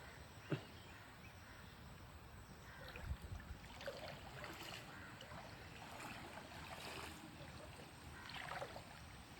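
Faint, irregular splashing of water in a shallow stream, with a single sharp click about half a second in.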